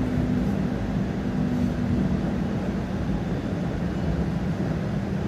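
TTC streetcar running along the track, heard from inside the car: a steady low rumble of the wheels on the rails with a steady motor hum, one tone of which fades out about two seconds in.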